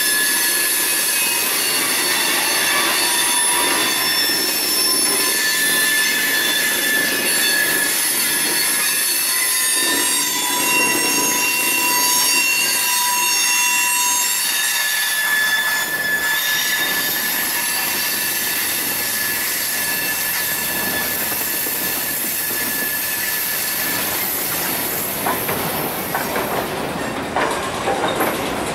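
Freight train's covered hopper cars rolling through a grade crossing, the wheels squealing with several high, shifting tones. The squeal thins out after the last car passes about halfway through, and near the end the clicking of wheels over rail joints takes over.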